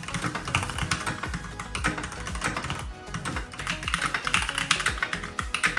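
Typing on a Keychron K10 Pro mechanical keyboard with tactile Brown switches and ABS keycaps: a quick, continuous run of keystroke clacks, over background music.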